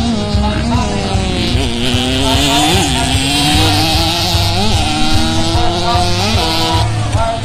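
Motocross dirt bike engines revving, their pitch repeatedly climbing and dropping as the bikes ride the jumps, over a steady hiss.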